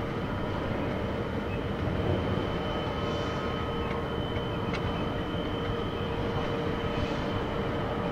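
Heavy diesel machinery running steadily, a constant drone with a thin steady whine over it.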